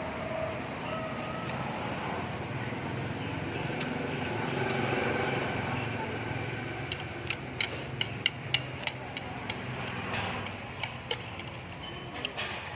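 Eating noodle soup: a run of sharp clicks and taps from about seven seconds in, over a steady background hum.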